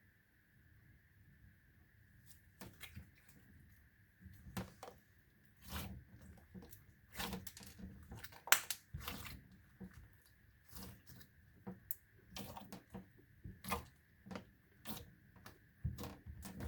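Slime being squeezed and poked by hand, giving irregular crackling clicks and pops that start a couple of seconds in and come in quick clusters, over a faint steady high whine.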